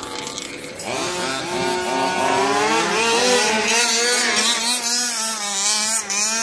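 Two-stroke petrol engine of an HPI Baja RC buggy revving as it is driven, its pitch rising and falling. It grows louder about a second in.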